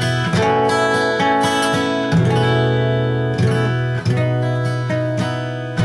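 Acoustic guitar in open D tuning with a capo, strumming a run of chords in turn, each left to ring before the next strum. The chords are two-finger chord shapes of the suspended A shape played with the pinky lifted.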